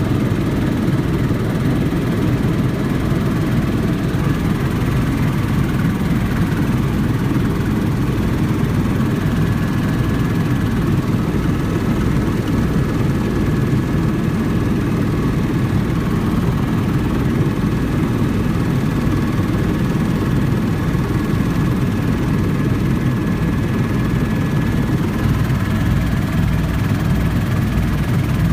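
Helicopter in flight: rotor and engine running steadily, with a regular low beating from the rotor blades and a faint high whine through the middle stretch.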